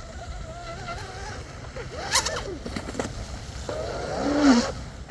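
Brushless electric motor of a Blackjack 24 RC catamaran whining from across the pond, its pitch wavering slightly as it runs. Two short, louder sounds cut in about two seconds in and near the end.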